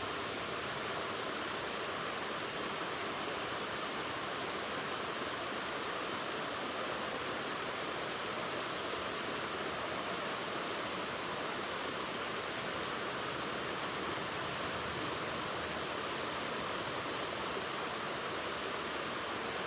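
Waterfall: a steady, unbroken rush of falling water, with no distinct splashes or other events.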